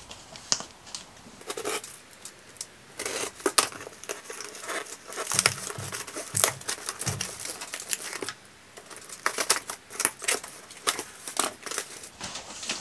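Scissors cutting through the packing tape on a cardboard box, then tape tearing and the cardboard flaps rustling and scraping as the box is pulled open, in a string of irregular snips and crinkles.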